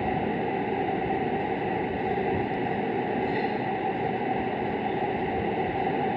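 Steady, even background hiss with a faint high steady tone running through it; no distinct sound from the plastic tool cutting into the soft dough stands out.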